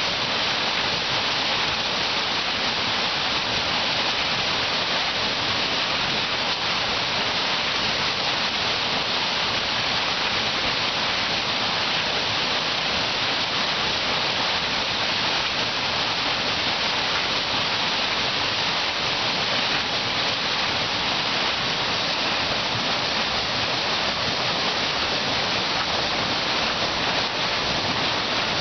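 Water rushing and churning as it spills from the foot of a turning Archimedes screw hydro turbine into the tailrace, a steady, unbroken sound.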